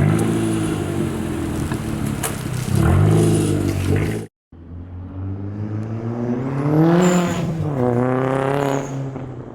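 Turbocharged 1.8-litre four-cylinder engine of a VW Jetta GLI through a catless, muffler-deleted 3-inch straight-pipe exhaust, revved in short blips. A sudden cut about four seconds in, then a longer rev that rises and falls, followed by a second one, with a faint high whistle climbing with the revs.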